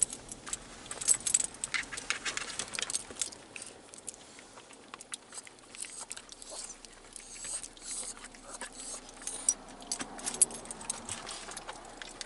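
Light metal jingling and clicking, scattered and irregular: the tags on a Yorkie's collar jangling as the dog moves about.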